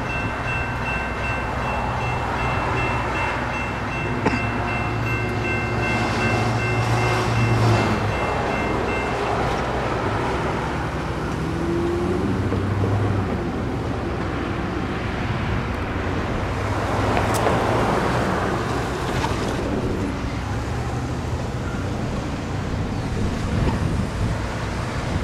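Electronic railroad crossing bell ringing steadily, stopping about nine seconds in, over the low hum of the light rail train. Later, a road vehicle passes over the crossing.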